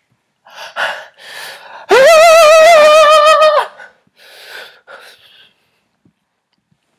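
A man's voice: breathy gasps, then a loud, high falsetto wail held for about a second and a half with a quavering vibrato, then a few more breathy gasps.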